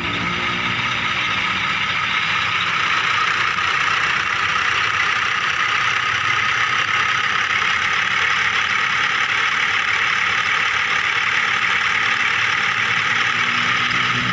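Small electric motor and plastic gearing of a remote-control toy vehicle running steadily, a high whirring that gets slightly louder about three seconds in.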